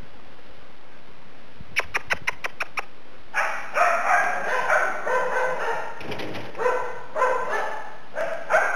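Shetland Sheepdog puppies barking in play: a quick run of short, sharp sounds about two seconds in, then repeated high-pitched yapping barks from about three seconds in.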